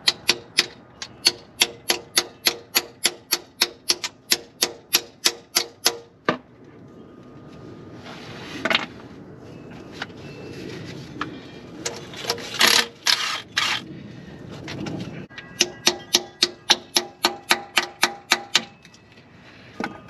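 Small hammer tapping a socket and extension onto a rusted transmission pan bolt, about four sharp metallic strikes a second, seating the socket so the rusty bolt head doesn't strip. Two runs of tapping, one of about six seconds and a shorter one past the middle, with shuffling and a few tool clinks between.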